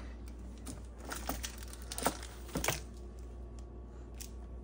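Small shiny snack wrapper crinkling as a toddler handles it, with a few sharp clicks.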